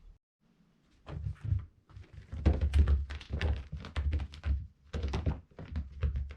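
A cat pouncing and scrambling on the floor while chasing a laser dot: a quick, irregular run of dull thumps that starts about a second in.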